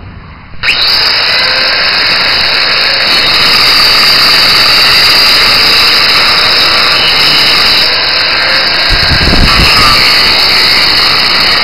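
Electric angle grinder switched on just under a second in, then running with a steady high whine as its disc cuts through metal. A brief low rumble comes about nine seconds in.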